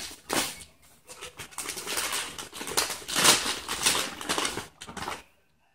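Shiny metallic gift-wrapping paper crinkling and being torn off a present by hand, in irregular bursts that stop shortly before the end.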